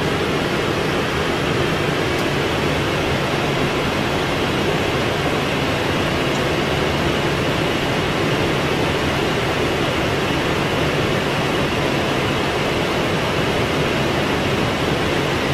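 Steady rushing noise inside a Boeing 777 flight deck, the even roar of airflow and cabin air conditioning with no change in pitch or level.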